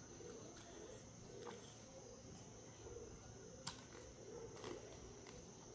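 Near silence: faint room tone with a few soft clicks, one sharper click about three and a half seconds in.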